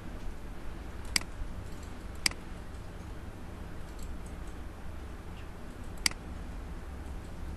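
Computer mouse button clicking: single sharp clicks about a second in, again a second later, and once more near the end, over a steady low hum.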